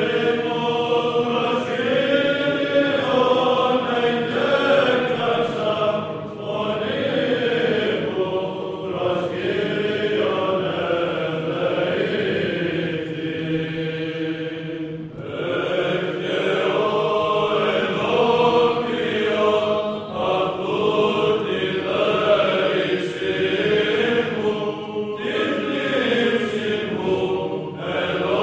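Orthodox chant: voices singing a slow melody over a steady held low drone. The phrases break briefly about six seconds in and again about fifteen seconds in.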